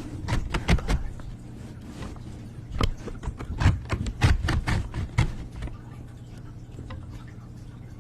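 A quick, irregular run of clicks and light taps that stops about five and a half seconds in, over a steady low hum.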